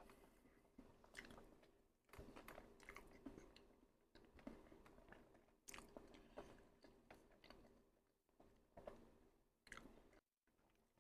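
A person chewing food close to the microphone: quiet, uneven wet clicks and smacks, with a fresh bite about two seconds in.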